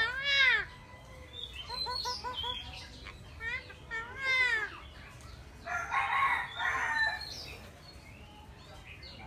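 Eclectus parrot calling: several pitched calls that rise and fall, a quick run of short clipped notes about two seconds in, then a harsh squawk about six seconds in.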